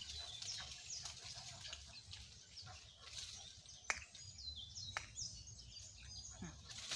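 Small birds chirping repeatedly, short high falling chirps, over a low rumble. Two sharp clicks stand out, about four and five seconds in.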